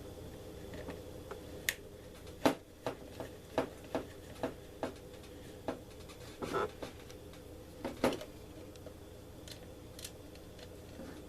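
Small metal hardware clicking and tapping as lock nuts are handled and started onto stainless screws on a metal ammo can: about a dozen sharp, separate clicks through the middle of the stretch, then quieter near the end.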